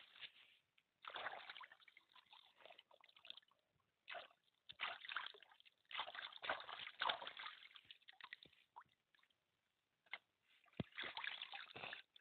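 Hands swishing and splashing spring onions in shallow stream water, in several short bursts with pauses between them.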